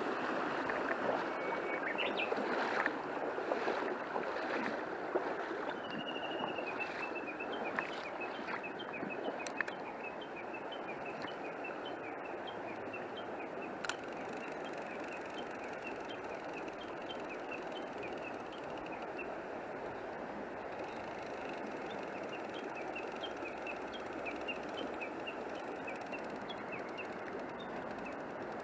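Small village stream flowing steadily after heavy rain. From about six seconds in, short high chirps repeat evenly over the water, and a few knocks sound in the first ten seconds.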